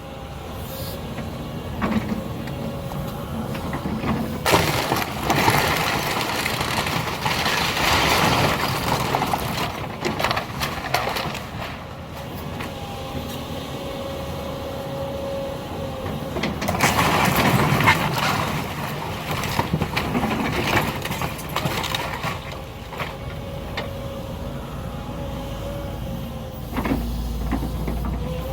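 A heavy demolition machine's engine running while a house is torn apart, with two long stretches of cracking and crashing debris as the structure breaks and falls.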